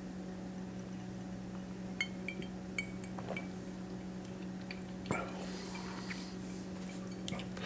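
A few light clinks of an ice cube against a drinking glass as the glass of bourbon is tipped up and sipped, over a steady low hum.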